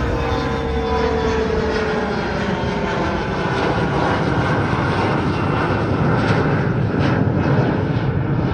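Mitsubishi CRJ-900's two rear-mounted GE CF34 turbofan engines at climb power as the jet passes overhead: a loud jet roar with a whining tone that slides down in pitch over the first couple of seconds, then blends into a steady rumbling roar.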